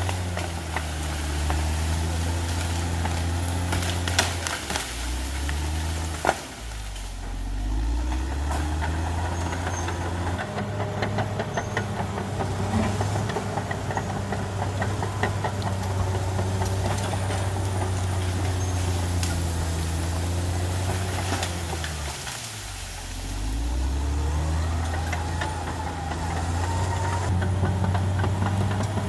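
Caterpillar D6R XL bulldozer's diesel engine running, its pitch sagging twice, about six seconds in and again near twenty-two seconds, before climbing back. A steady clatter of clicks and knocks runs over the engine.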